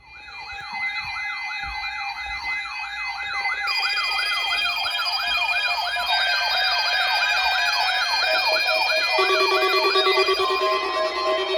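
Electronic emergency alarm tones. A siren-like tone sweeps rapidly up and down, about two and a half times a second, and more steady and warbling tones join about four seconds in and again about nine seconds in, building into a loud, dense layered alarm.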